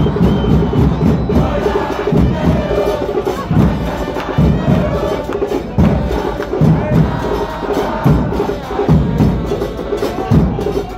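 A crowd of football supporters singing a terrace chant together, with deep bass drums beating along about once a second.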